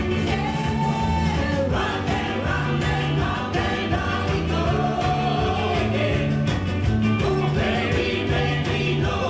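Band playing a rock and roll twist number: a singer over a steady, repeating bass line and drum beat.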